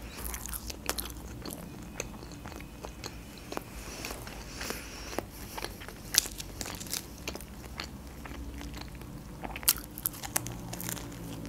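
Close-up chewing and biting of lahmacun, thin flatbread topped with minced meat, eaten by hand: scattered wet mouth clicks and small crunches, a few louder ones about six and ten seconds in as another bite is taken.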